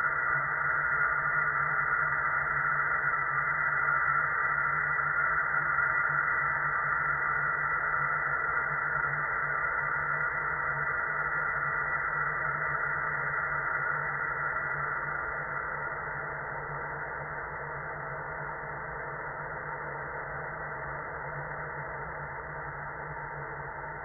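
Steady white noise hiss with a low rumble underneath, easing down gradually in level about fifteen seconds in.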